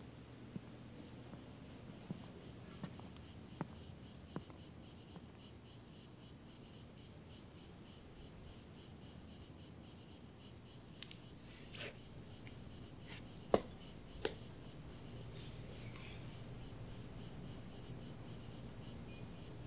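Footsteps on a hard floor, a steady pace of sharp taps during the first few seconds. Then a faint steady high buzz, with a couple of soft knocks and rustles past the middle as two people sit down on a stone step.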